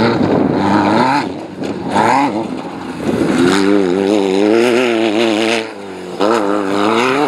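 Off-road race car engine revving hard, its pitch surging up and down and wavering rapidly as the revs change over rough ground, with brief drops in revs about a second and a half in and again near six seconds.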